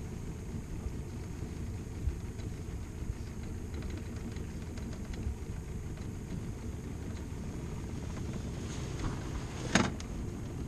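Small boat's outboard motor idling with a steady low rumble. A single sharp knock near the end.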